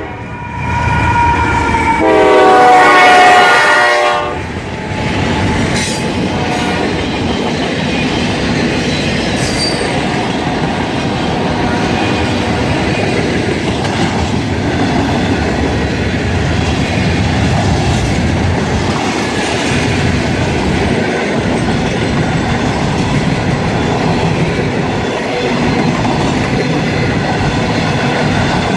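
CSX freight train led by a GE AC44CW locomotive passing. Its horn sounds loud for about two seconds near the start, then the train rolls by with a steady rumble and clickety-clack of wheels on the rails.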